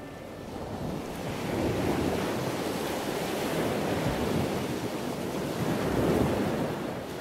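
Sea surf washing in and breaking against rocks: a steady rushing of water that swells and eases, growing louder about a second in.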